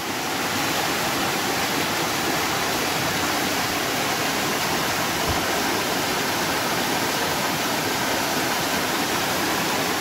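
Waterfall spilling down stepped rock ledges: a steady rush of falling water.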